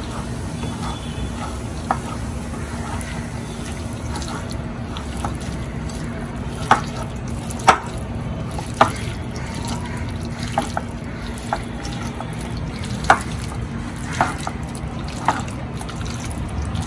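A hand squishing and turning small anchovies in a wet spice marinade in a ceramic bowl: soft wet squelching, with irregular sharp clicks now and then, over a steady low hum.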